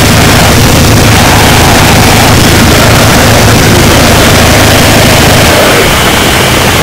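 Harsh noise music: a loud, unbroken wall of dense distorted static filling every pitch from a heavy low rumble up to a hissing top. The low rumble thins out near the end.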